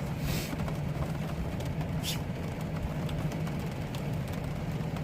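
Steady rain on a van's roof, with scattered drop ticks, over the constant low hum of the van's air conditioner. There are two brief hissy swells, near the start and about two seconds in.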